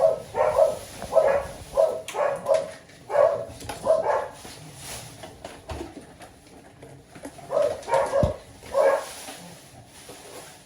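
Eight-week-old cocker spaniel puppies yapping in play, a quick run of short high barks for the first four seconds or so, then a few more about eight seconds in.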